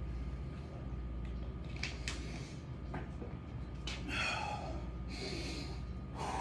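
A man breathing hard while catching his breath between exercise sets: a few short sharp sniffs, then two loud exhales about four and five seconds in, over a steady low hum.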